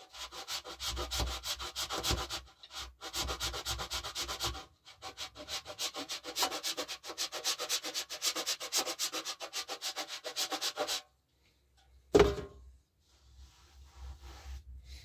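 Candle wax being grated on a hand grater, a fast run of rasping scrapes with two brief breaks. The scraping stops about eleven seconds in, and a single sharp knock follows a second later.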